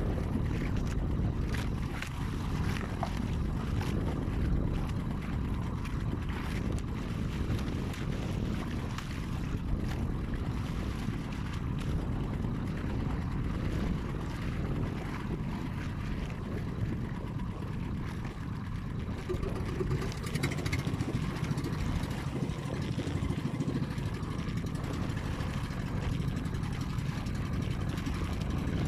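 Small outrigger fishing boat's engine running steadily while underway, a low, even rumble.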